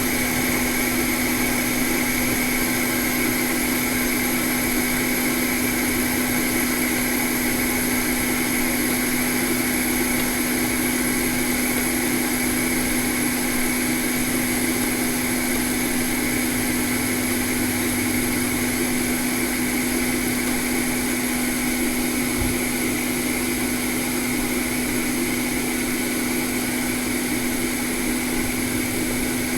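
Electric blower fan running steadily, a constant whirring hum with a high whine over it and no change in speed, of the kind used to cool a circuit board after hot-air rework.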